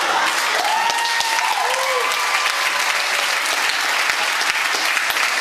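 Audience applauding, with a few brief calls from the crowd that rise and fall in pitch within the first two seconds.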